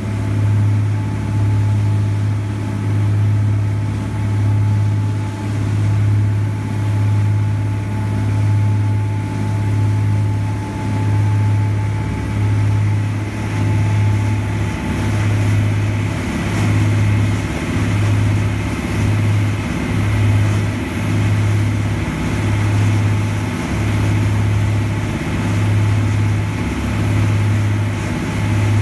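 Boat engine running underway: a steady low drone whose hum swells and dips about once a second.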